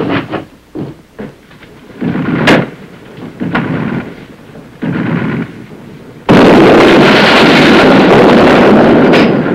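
A few separate sharp bangs, then about six seconds in a sudden, very loud explosion that roars on for about three seconds before dying away: an explosive charge going off inside a building.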